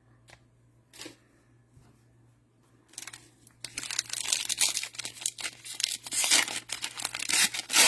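Plastic cellophane wrapper of a trading-card cello pack being torn open and crinkled, starting about three seconds in after a few light clicks.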